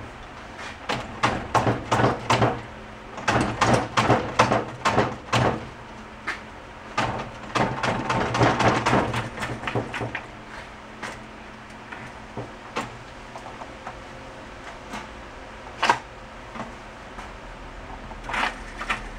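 Irregular runs of sharp metallic clicks and clunks from hand-tool work on a seized Honda CB350 engine. They come in two busy stretches, then a few scattered knocks, one sharp knock near the end.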